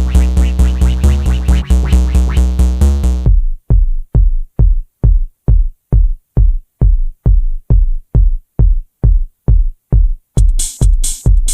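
Electronic background music with a steady four-on-the-floor kick drum. About three seconds in, everything drops out except the kick, about two beats a second, and the full track comes back near the end.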